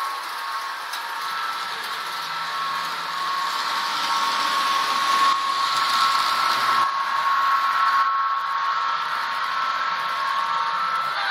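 HO-scale Santa Fe Super Chief model train running on the layout track: a steady electric motor whine with wheel noise on the rails, louder from about four to eight seconds in as the train runs close by.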